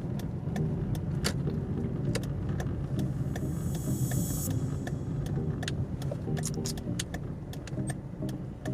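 Car driving slowly, heard from inside the cabin: a steady low engine and road rumble with frequent light ticks and clicks, and a short hiss about three and a half seconds in.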